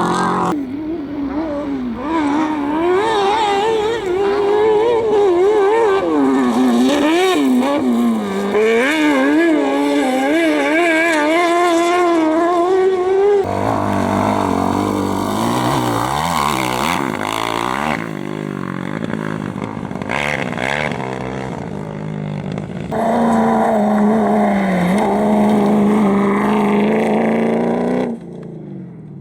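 Competition engines revving hard on a dirt slalom course, their pitch rising and falling again and again through gear changes and throttle lifts. The sound changes abruptly about halfway through and again near the end as a different vehicle is heard.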